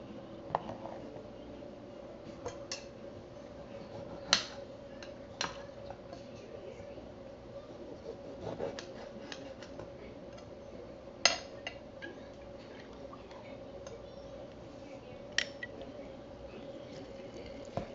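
Metal slotted spoon clinking and scraping against a plastic mixing bowl while a chopped soy and vegetable mixture is stirred: a handful of scattered sharp clicks, spaced a second or more apart, over a steady faint hum.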